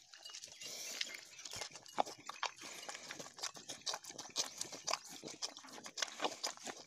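Bullock drinking from a steel basin of liquid: a rapid, irregular run of wet slurps and sucking clicks with no pause.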